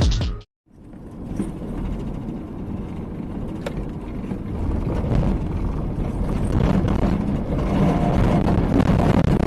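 Music cuts off abruptly, then a car's engine and road noise rumble steadily, as heard from a dashcam inside a moving car, slowly getting louder.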